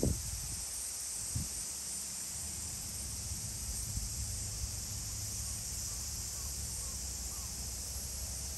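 Steady high-pitched buzz of a summer insect chorus over a low wind rumble on the microphone, with a knock right at the start and a softer one about a second and a half in.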